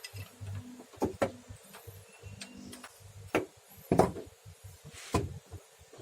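A handful of separate sharp knocks and clicks, a second or more apart, the loudest about four seconds in: hand work on the steering gearbox being repaired.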